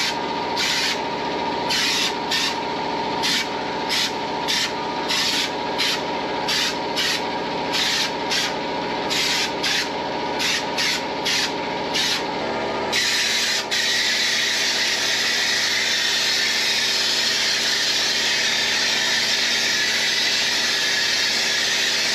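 Underseal sound deadener being sprayed onto a car's underside: short hissing squirts about once or twice a second, then from about thirteen seconds in one long continuous spray. A steady hum runs beneath.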